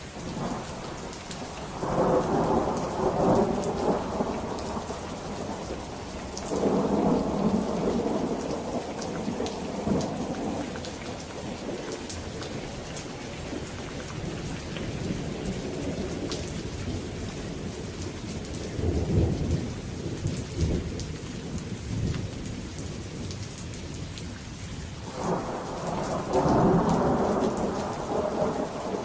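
Steady rain falling, with rolls of thunder rumbling four times: about two seconds in, around seven seconds, around twenty seconds, and again near the end.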